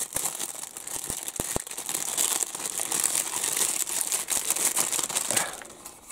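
A thin clear plastic bag crinkling and rustling as it is pulled off a plastic model kit part, with a few small ticks early on, dying away near the end.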